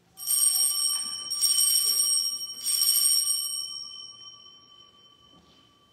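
Altar bells rung three times at the elevation of the consecrated host. Three bright jangling peals about a second apart, then the ringing fades away.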